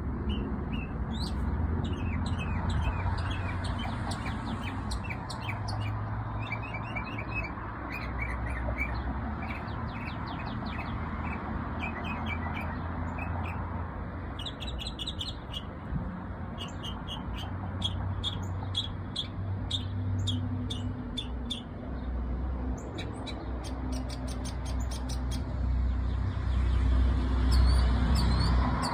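A songbird singing: long runs of quick, high chirps and trills, at times several notes a second, over a steady low rumble.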